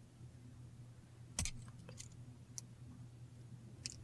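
A few small, sharp metal clicks of chain nose pliers handling a jump ring and pewter charms, the loudest about a second and a half in, with others near two seconds, two and a half seconds and near the end, over a faint low hum.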